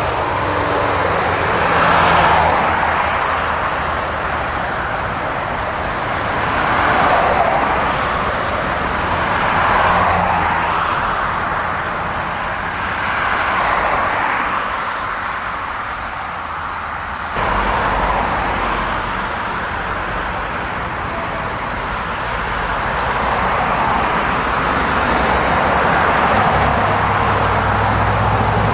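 Road traffic on a dual carriageway: lorries and cars passing one after another, each pass a swell of tyre noise and diesel hum, about five in all. Near the end the low engine note of an approaching articulated lorry grows.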